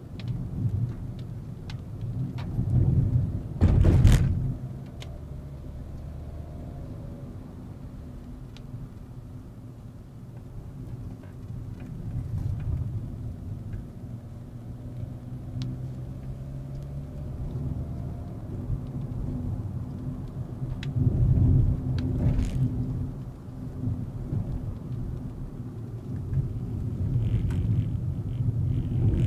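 Volkswagen Vento with a 1.2 TSI turbo petrol engine driving, a steady low engine hum and tyre rumble. The rumble swells louder twice, about three to four seconds in and again about twenty-one seconds in.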